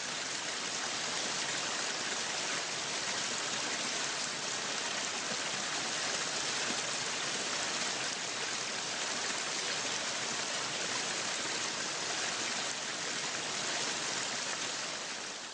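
Waterfall: a steady rush of falling water, fading out near the end.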